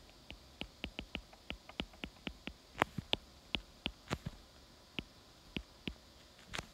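A stylus tapping and clicking on a tablet's screen during handwriting: a run of light, irregular clicks, about two to four a second, with a short pause in the middle.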